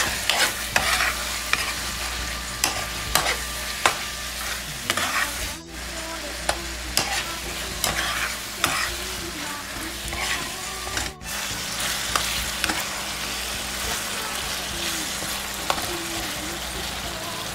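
Shrimp paste (alamang) sautéing in a nonstick frying pan: a steady sizzle, with a metal spoon scraping and clacking against the pan as it is stirred, most often in the first few seconds.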